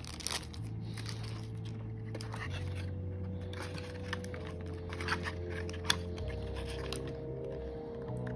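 Handling of packaging: scattered sharp clicks and soft rustles of a plastic bag and a cardboard box insert as a small bike light is worked out of the box. Underneath runs soft background music with held low notes that change a few times.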